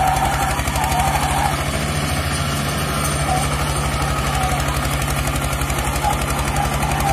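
Eicher 242 tractor's single-cylinder diesel engine running hard under full load, a steady rapid beat, as it pulls against an SUV on a tow rope with its rear wheels spinning in loose dirt.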